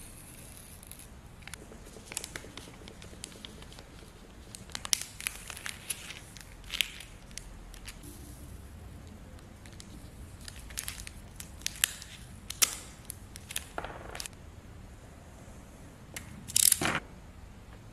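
Clear plastic film crinkling and crackling as it is cut, folded and taped with washi tape, in scattered short crackles, with one louder rasp about a second before the end.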